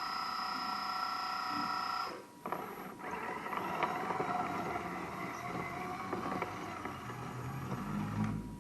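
Hydraulic RC construction model's pump motor whining steadily, cutting out briefly about two seconds in, then running again under a stretch of clicks and scraping from the machine at work.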